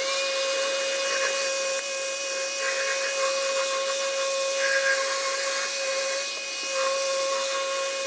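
Random orbital sander with a dust-extractor hose attached, sanding the edge of a wooden beehive box. It gives a steady whine over a rushing hiss.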